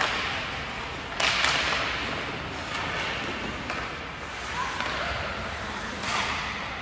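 Ice hockey play: sticks striking the puck and skate blades scraping the ice, with a sharp crack a little over a second in followed by a scraping hiss, and another scrape near the end.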